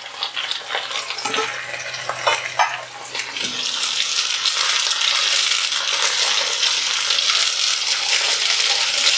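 Sliced onions sizzling in hot oil in a stainless-steel kadhai as a spatula stirs them, with a few light taps and scrapes against the pan in the first seconds. About three seconds in the sizzle grows louder and then holds steady.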